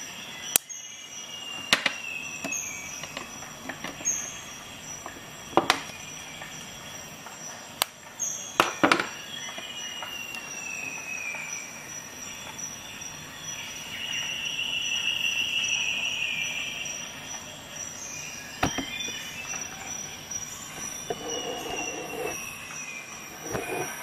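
Sharp clicks at uneven intervals, about eight in all, mixed with high squeals that slide downward in pitch. A longer, louder wavering squeal comes in the middle.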